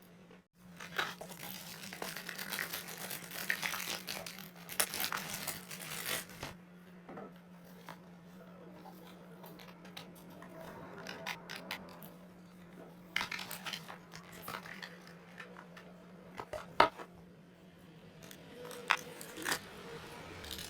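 Packaging being handled and torn open: dense rustling and tearing for several seconds, then scattered clicks and knocks as the contents are handled. A steady low hum sits underneath until a sharp knock near the end.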